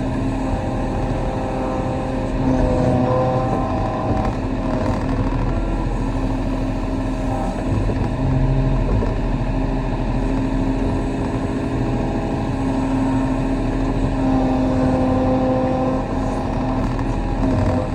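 Kobelco SK35 mini excavator's diesel engine running steadily as the machine works, its pitch shifting slightly up and down.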